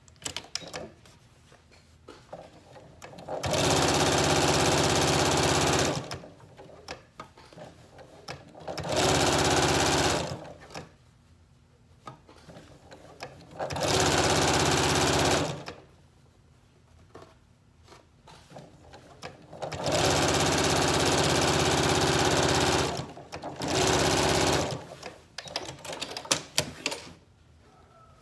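Janome electric sewing machine stitching in five short runs of a few seconds each, stopping in between. The pauses hold faint clicks and fabric handling, with a cluster of small clicks near the end.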